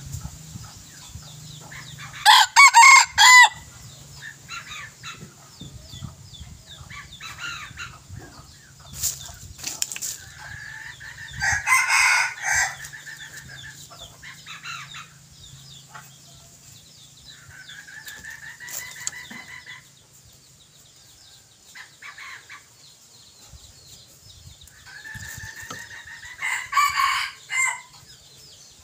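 Junglefowl decoy roosters crowing repeatedly, with three loud crows about two seconds in, near the middle and near the end, and fainter calls and clucks between them.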